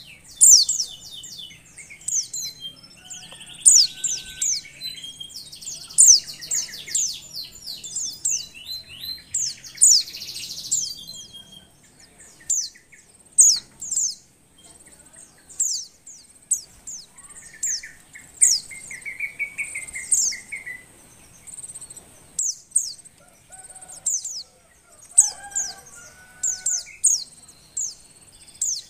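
Female white-eye (pleci) in breeding condition calling: a long run of short, high chirps, each sweeping downward in pitch, repeated about once or twice a second. Now and then a lower warbling phrase sounds behind it.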